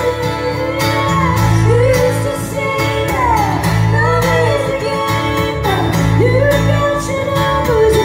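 Live band playing a song: a woman singing lead over acoustic guitar, electric guitar and bass guitar, with a steady beat.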